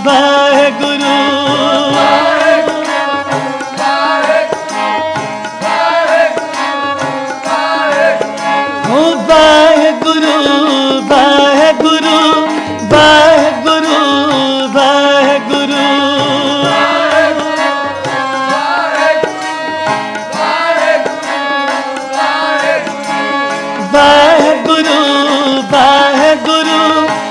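Sikh devotional simran music in an instrumental stretch: a harmonium holds a steady melody over tabla hand-drumming.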